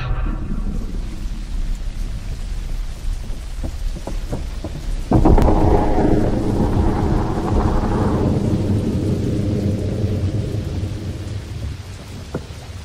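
Thunderstorm: steady rain and rumbling, with a loud thunderclap about five seconds in that rolls on and fades over several seconds.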